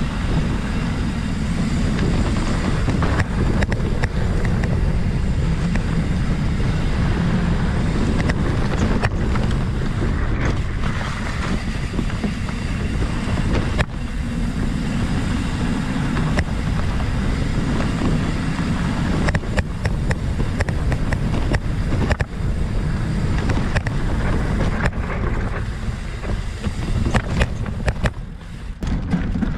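Mountain bike rolling along a dirt singletrack, with the low rumble of its tyres on the trail and wind rushing over the microphone. Short knocks and rattles from bumps in the trail come every few seconds, more often in the second half.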